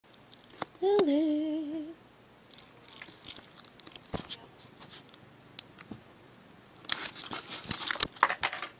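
A voice calling "Lily" in a drawn-out, wavering sing-song, about a second long. Scattered faint clicks follow, then a burst of sharp clicks and crackly rustling near the end.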